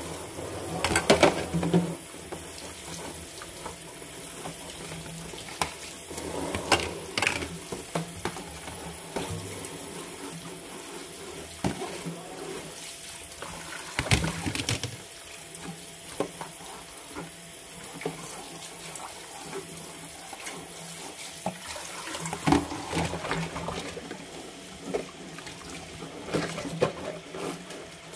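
Kitchen tap running steadily into a stainless steel sink while plastic food containers are rinsed under it, with scattered knocks and clatters of plastic against the sink, the loudest about a second in and about halfway through.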